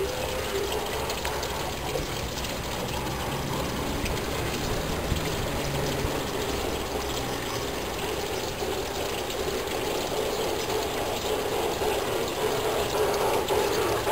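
G-scale model freight train rolling along garden track: a steady mechanical running of the geared motor and wheels, with faint ticking.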